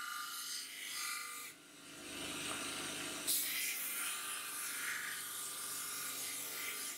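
Small belt grinder running while a steel knife blade is ground against its abrasive belt: a rasping, hissing grind that turns louder and brighter about three seconds in.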